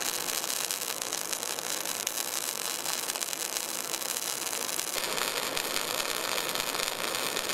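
MIG welding arc crackling and hissing steadily as the torch lays a bead on steel plate and throws spatter. The crackle's tone changes about five seconds in.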